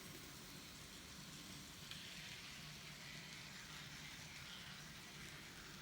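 Near silence: faint steady hiss with a low hum, room tone.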